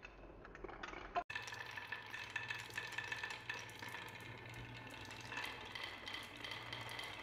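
Dozens of glass marbles rolling around a wooden spiral track and down wavy wooden slopes, a dense continuous rattle of rolling and clicking as they knock against the wood and each other. The sound cuts out for an instant about a second in, then the clatter runs on.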